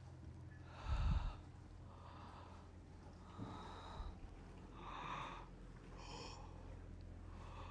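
A person breathing heavily, a breath about once a second. There is a low thud about a second in.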